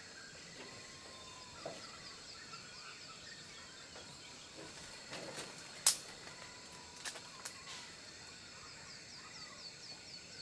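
Rainforest ambience: a steady high insect drone, with two runs of short, quickly repeated falling bird notes and a brief whistle about a second in. A sharp click about six seconds in is the loudest sound, followed by two softer clicks a second later.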